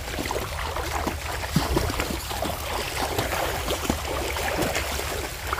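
Steady rain falling, with many small drops pattering and water trickling, over a constant low rumble.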